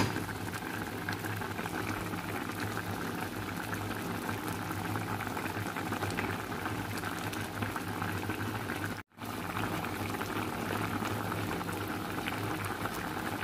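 Ramen broth boiling in a pan, a steady bubbling with a low steady hum underneath. The sound cuts out for an instant about nine seconds in.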